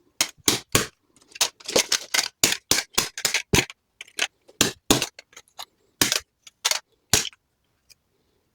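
Irregular run of sharp plastic clicks and taps, about three a second, from a computer mouse's plastic shell and parts being handled and fitted together; they stop near the end.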